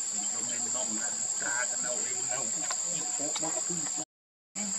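Insects, such as crickets or cicadas, shrilling in a steady high-pitched drone, with faint scattered sounds lower down; the sound cuts out completely for about half a second near the end.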